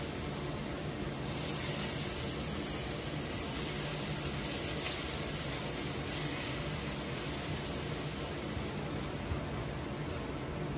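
Onion frying in hot olive oil in a pan, a steady sizzling hiss over a steady low hum.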